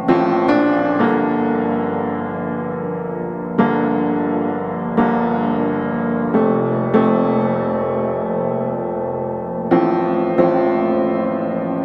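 Background music: slow piano, chords and notes struck every second or so and left ringing.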